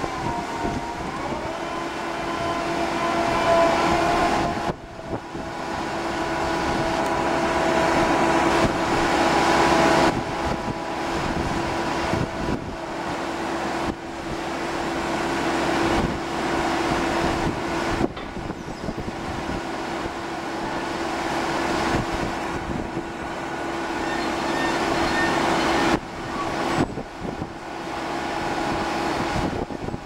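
Ship's deck crane machinery running with a steady whining hum under broad mechanical noise, as the crane lowers a clamshell grab into a bulk hold. The sound breaks off and resumes abruptly several times.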